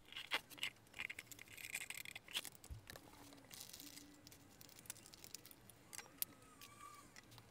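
Faint clicks, scrapes and rattles of metal parts being handled as an old industrial lamp's bulb socket is worked loose and taken off the neck of its shade. The sharpest clicks come in the first second or two.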